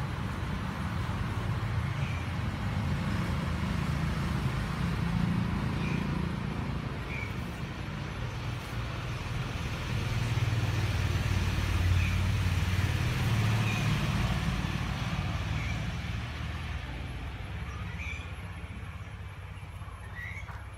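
Honda Activa scooter's small single-cylinder four-stroke engine idling steadily, with a low, even hum that grows slightly louder partway through.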